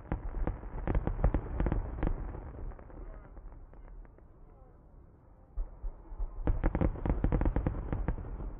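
Aerial fireworks going off: a dense cluster of sharp bangs and crackling pops, quieter for a few seconds, then another cluster near the end.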